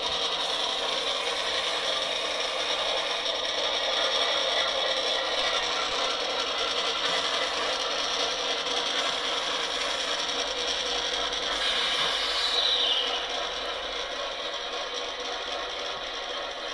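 Model diesel locomotives' electric motors and gearboxes whirring steadily as they run forward along the track, with a short falling whine about twelve seconds in, after which it gets a little quieter.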